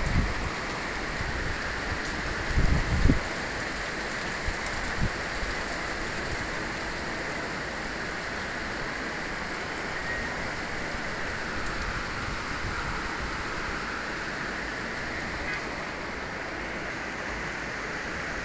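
Steady rain pouring, an even hiss of drops on surfaces, with a couple of short low thumps about three seconds in.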